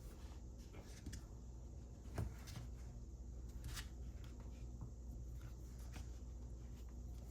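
A few faint, scattered clicks and light rustling, like parts being handled, over a steady low hum.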